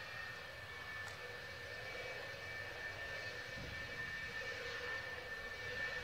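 F-4EJ Kai Phantom II's twin J79 turbojets whining at taxi power: a steady high-pitched jet whine over a low rumble, easing slightly down in pitch at the start and then holding.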